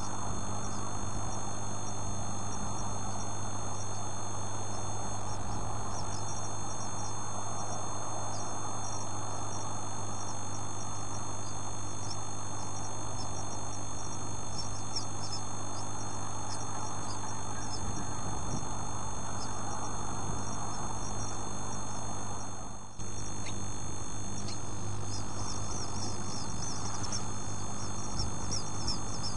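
Bird chicks cheeping faintly and high-pitched over a steady electrical hum and hiss, the cheeps coming thicker near the end.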